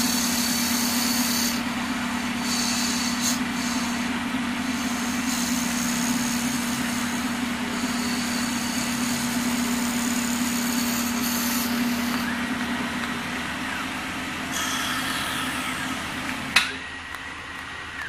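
Automatic wood lathe running: a steady motor hum under the scraping of the cutting tool turning a spinning wooden blank into a knob, the higher-pitched cutting sound coming and going in spells. A sharp click near the end.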